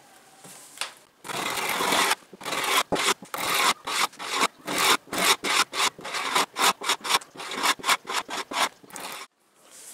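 A flat wood chisel scraping a hardened polyurethane finish off a wooden tabletop along the grain. It starts with one longer stroke about a second in, then goes in rapid repeated strokes, about three a second, and stops abruptly near the end.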